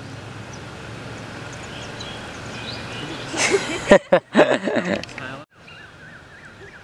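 A young man and woman laughing together for about two seconds, starting a little past halfway, over a steady low outdoor background noise.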